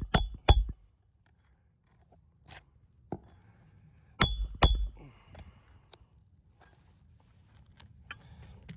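Hammer driving roofing nails into asphalt shingles: sharp strikes with a short metallic ring, two near the start and two more about four seconds in, with faint small taps between.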